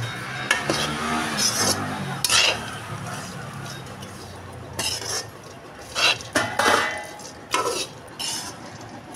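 A spoon scraping and clinking against a metal kadhai as chopped almonds, walnuts and cashews are stirred while roasting in ghee. The strokes are short and irregular, about nine of them.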